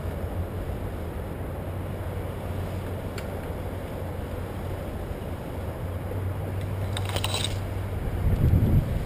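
Wind and rolling noise on a camera riding along on a bicycle: a steady rumble with a low hum, a brief rattle about seven seconds in, and a louder gust of wind on the microphone near the end.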